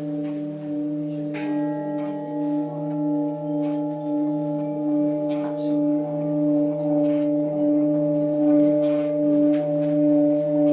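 Large Tibetan singing bowl, big enough for a person to stand in, rubbed around its rim with a felt-covered stick so that it sings a steady low hum of several overlapping tones. The hum wavers in a regular pulse about twice a second and grows a little louder toward the end.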